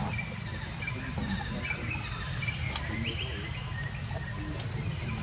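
Forest ambience: a steady high insect tone and short, repeated bird chirps over a low rumble, with a single faint click near the middle.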